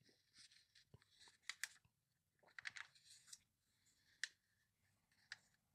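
Glossy catalog pages being turned by hand: a soft run of paper crinkling and rustling over the first three seconds or so, then a couple of sharp ticks as the page is smoothed down.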